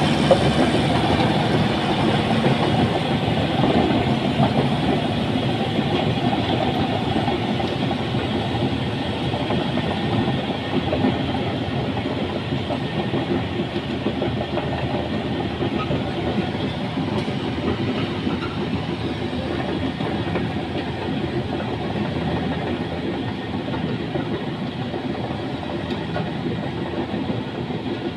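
Caterpillar bulldozer working: its diesel engine runs continuously under a dense clanking rattle from the steel tracks, gradually getting a little quieter.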